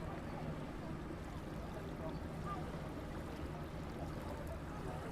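River ambience: a steady low hum, like a boat engine running some way off, over moving, lapping water.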